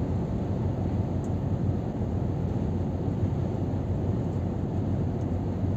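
Steady low drone of a Scania R500 truck cruising at motorway speed, heard inside the cab: engine and road noise with no sudden events.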